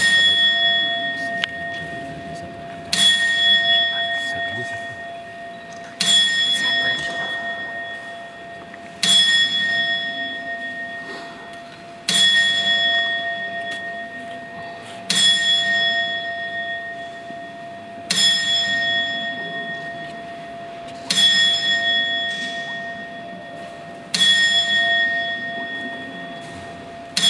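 Bell of the Strasbourg Cathedral astronomical clock struck by its automaton, one stroke about every three seconds, each stroke ringing on and slowly fading before the next.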